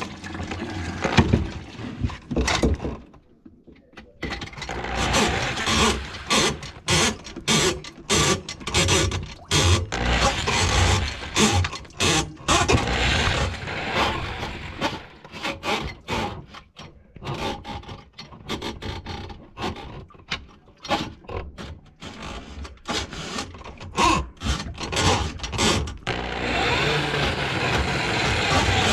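A run of irregular knocks, clanks and scrapes from plumbing tools being handled on a grease-clogged kitchen drain line. Near the end a steady mechanical running noise starts up.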